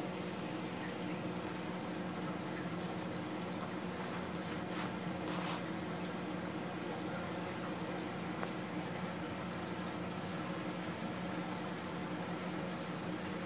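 Saltwater aquarium's water circulation running: a steady trickling, bubbling water noise over a steady low hum.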